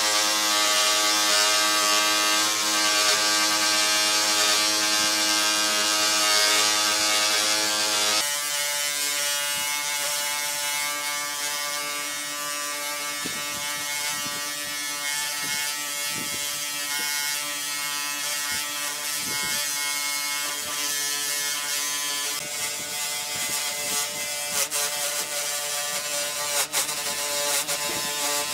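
Handheld electric rotary tool spinning an abrasive disc on a long shaft against wood, a steady motor whine as it smooths the tabletop. About eight seconds in the sound changes abruptly to a slightly quieter, lower running with some light knocks, and a few sharp clicks come near the end.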